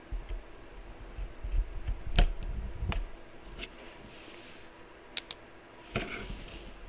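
Scattered sharp clicks and short rustles of small wire leads being handled and hooked up to a bench power supply, with a quick double click a little after five seconds.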